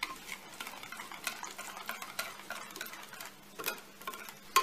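Wire whisk stirring a thick semolina batter in a glass baking dish, its wires scraping and clicking irregularly against the glass, with one louder clack near the end.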